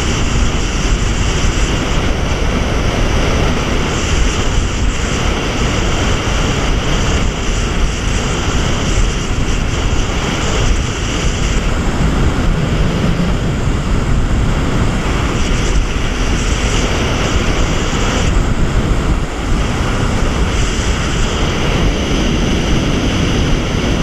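Jet ski running at speed: a loud, steady rush of engine and water jet mixed with spray from the wake and wind buffeting the microphone.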